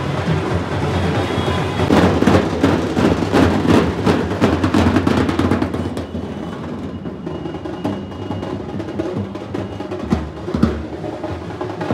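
A street drum group of slung festival drums playing fast rolls and rhythms, loudest for a few seconds in the first half, then somewhat quieter with a few stronger hits near the end.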